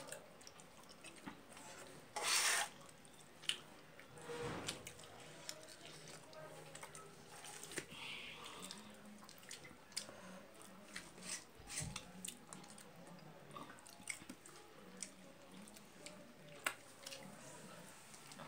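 Eating by hand: quiet chewing and small mouth smacks, with scattered clicks of fingers mixing rice on a steel plate. A brief, louder rustle about two seconds in.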